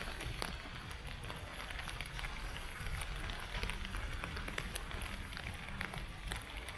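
Footsteps crunching on beach sand, irregular gritty crackles over a steady low rumble of wind and surf.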